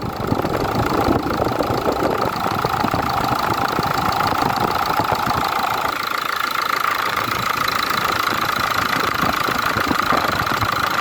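Ford Ranger 3.0 NGD Power Stroke four-cylinder turbo-diesel engine idling steadily, running on a newly fitted accessory belt and tensor.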